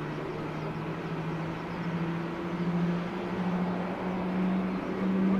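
An engine running with a steady hum that rises slowly in pitch, over a background of noise.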